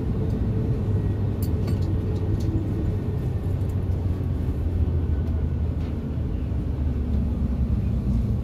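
Steady low rumble and hum inside the cabin of an Airbus A330-200 airliner standing at the gate, with a few faint clicks about a second and a half in.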